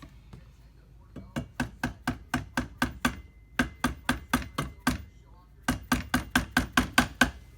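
Quick light hammer taps on the AR-15 handguard, about four a second in three runs with short pauses between, tapping it onto the barrel to seat it snug.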